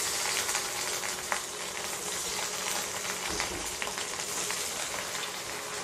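Masala-coated fish pieces frying in hot oil in a kadhai: a steady sizzling hiss with small crackles and pops, easing off slightly.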